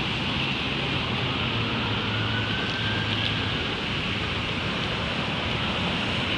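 Steady city background noise: a continuous hiss of distant traffic over a low hum.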